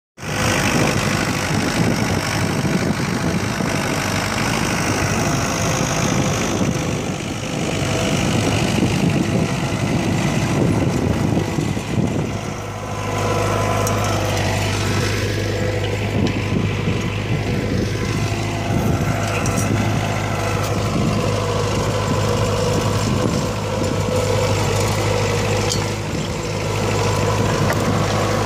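İşbora tractor's diesel engine running under load as it pulls a mounted plough through dry, long-unbroken ground. The sound is rough and noisy at first, then settles into a steadier, even hum about halfway through.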